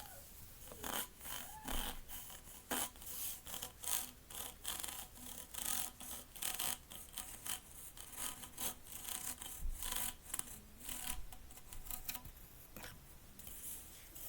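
Plastic pop tube fidget toy being stretched and squeezed, its corrugated ribs giving an irregular run of rasping clicks.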